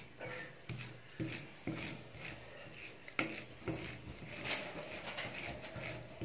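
Flat metal spatula scraping and smoothing thin ice cream mix across a frosted cold plate for rolled ice cream, in repeated short strokes about twice a second, with one sharper knock about three seconds in.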